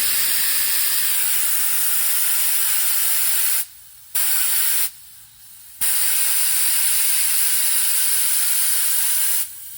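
Compressed air hissing steadily through an inflator chuck into a riding lawn mower's tire, with two short breaks a few seconds in, stopping just before the end.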